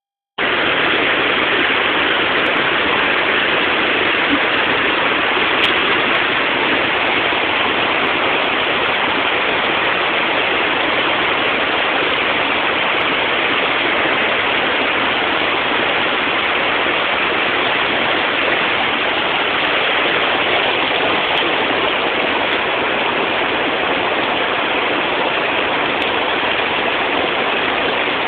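Shallow stream running steadily over rocks: a continuous, even rush of water.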